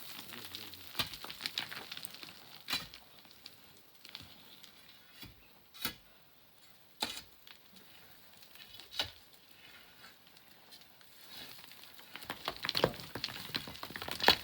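Sand and pebbles trickling and falling, with scattered sharp clicks of small stones landing every second or two and a denser clatter of stones near the end.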